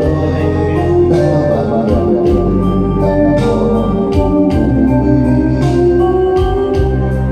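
Loud music with a heavy bass line, held keyboard notes and regular drum hits.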